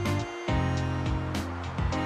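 Background music: sustained notes over a beat of sharp hits.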